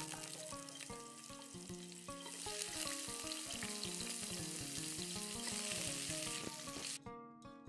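Peeled potatoes sizzling in hot oil in a metal pot, the sizzle growing louder about two seconds in and cutting off suddenly near the end, over background music.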